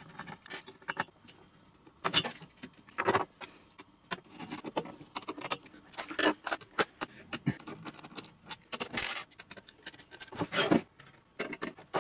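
Metal tools, screws and casing parts clinking and clattering as a welding inverter is unscrewed and its circuit board lifted out: irregular sharp clicks and rattles, with louder clatters about two and three seconds in and near the end.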